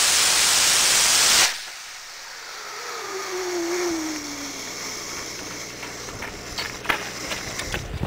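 Small sugar-propellant (rocket candy) motor burning with a loud steady hiss that cuts off abruptly about a second and a half in. A faint tone falling in pitch follows, and a few sharp crackles come near the end.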